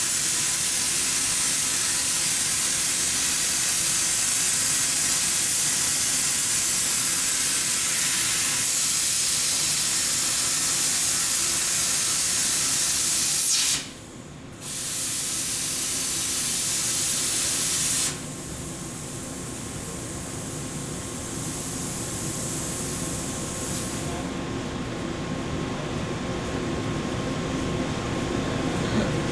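Welding: a loud, steady hiss that cuts out for about a second midway, starts again for a few seconds, then stops, leaving a quieter steady background noise.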